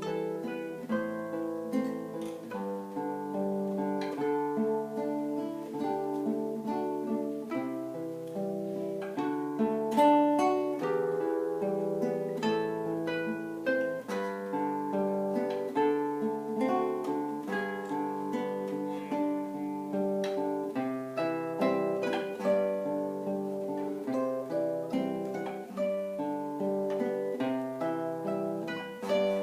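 Solo acoustic guitar playing an instrumental piece: plucked melody notes over bass notes that change every second or two.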